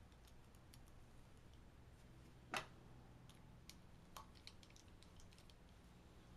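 Faint small metallic clicks and ticks as a long Allen key works the cap screws on a Synapse blow-off valve, with one louder click about two and a half seconds in.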